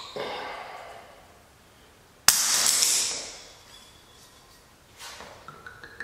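A cork pulled from a wine bottle: one sharp pop a little over two seconds in. Near the end, red wine starts pouring from the bottle into a wine glass, with a tone that rises as the glass fills.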